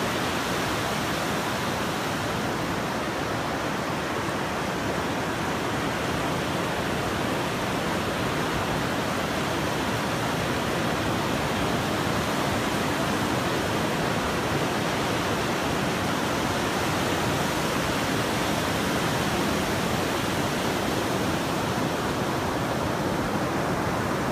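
Pacific Ocean surf breaking offshore and washing up a flat sand beach: an unbroken rush of water noise at a steady level, with no single crashes standing out.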